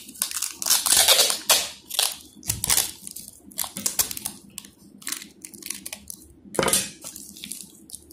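Clear packing tape pulled off its roll in short rasping strips and wound around a plastic bottle's cap to seal it against leaks. The pulls come in irregular bursts, loudest about a second in and again shortly before the end.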